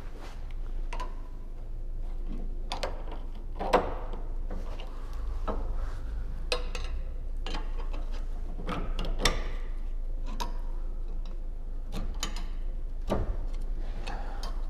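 Hand-tool work on a car's stabilizer bar: irregular clicks, scrapes and knocks of a screwdriver against metal, with the sharpest knocks about four and nine seconds in.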